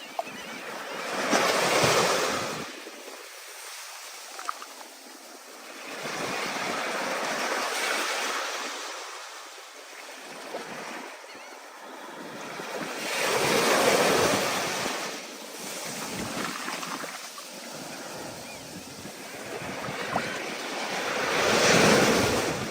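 Stormy ocean surf: waves surge and break in repeated swells, one every six to eight seconds, about four times.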